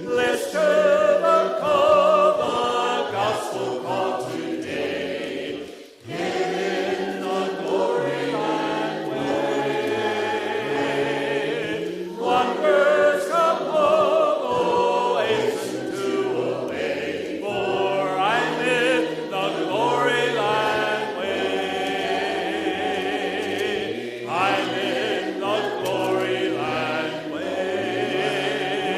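Church worship singing: a group of voices singing together as music, phrase after phrase, with short breaks between phrases.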